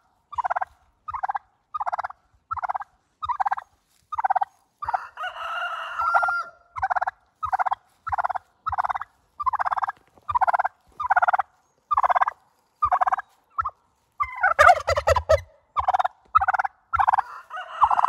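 Domestic turkey calling in a steady series of short notes, about one and a half a second, with a louder, rougher burst of calling about fourteen seconds in.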